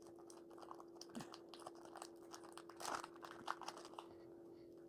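Foil booster-pack wrapper crinkling and tearing as it is pulled open by hand, in faint irregular crackles that are loudest about three seconds in and die away near the end.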